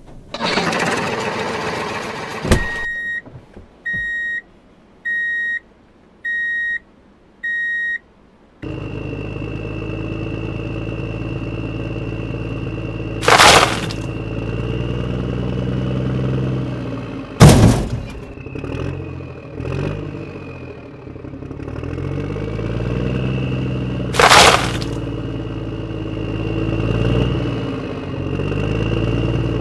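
Heavy-machinery sound effects: a loud hissing rush ending in a click, then five evenly spaced high beeps like a reversing alarm. After that a machine engine runs, its pitch rising and falling as it revs, with three loud crashes of a bucket load.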